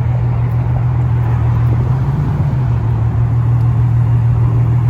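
BMW E92 M3's V8 engine running with a steady low drone while the car cruises slowly.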